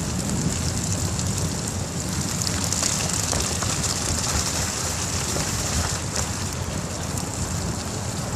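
Steady hiss and low rumble of a bicycle ride on snowy, slushy streets: wet tyre hiss over slush, with wind rumbling on the microphone.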